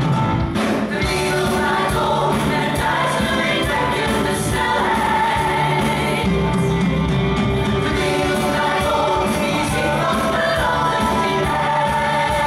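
A musical-theatre ensemble singing together over a live band with a steady beat, voices holding long notes.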